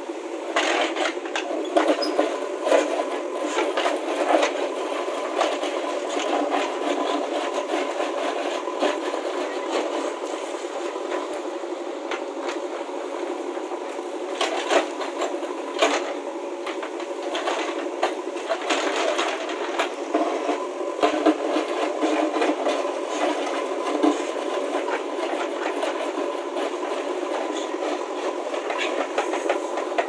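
JCB backhoe loader's diesel engine running steadily under load as the backhoe digs, with frequent sharp knocks and clatters as the bucket scrapes through broken stone and rubble.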